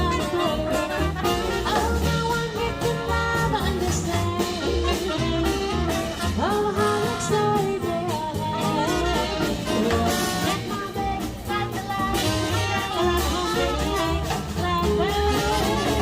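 Live swing band playing an upbeat jazz tune, with brass and a steady bass beat.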